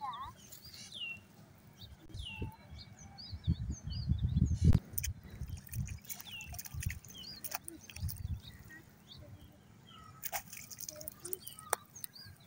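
Small birds chirping again and again in short, quick calls. Bursts of low rumble come and go, loudest around four to five seconds in, with a few sharp clicks.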